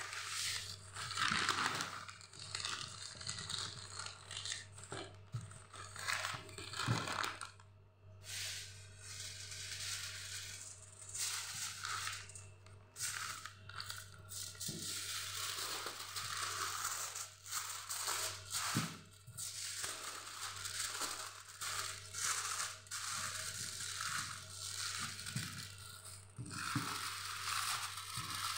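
Aluminium foil and paper crinkling and rustling as hands fold them into a packet around a baked fish, with irregular crackles and small taps throughout.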